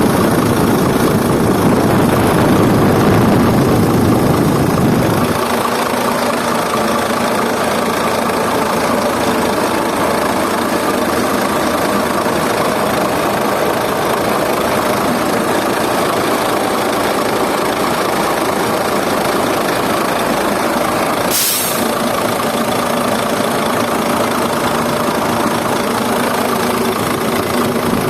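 Iveco Stralis truck engine idling with the cooling fan's bearing growling, the sign of a worn fan bearing. Louder and heavier for about the first five seconds, then a steady drone; one short sharp noise about three-quarters of the way through.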